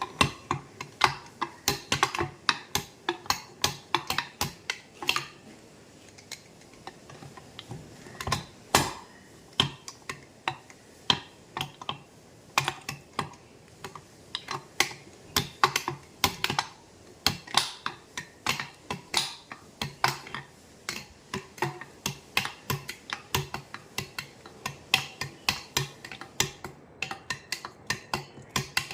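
Rapid, irregular light clicks and taps, several a second, from small metal parts being handled and worked, with a short lull partway through.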